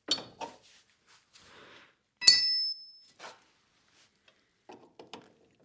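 Open-end wrench clicking against the metal hydraulic valve fitting as the valve is threaded in, with one loud ringing metallic clink a little over two seconds in and a few light taps after it.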